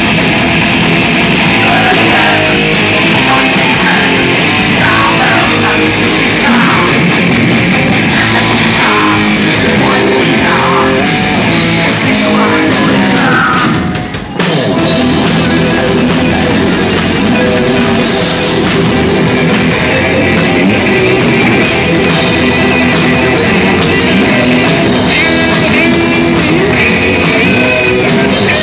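Heavy metal band playing live, loud: distorted electric guitars and drum kit, with a singer's vocals in the first half. A short break about halfway, then the lead electric guitar comes to the fore.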